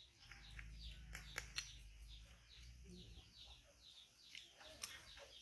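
Faint background birds chirping: short, high, falling chirps repeated a few times a second, with a few soft clicks.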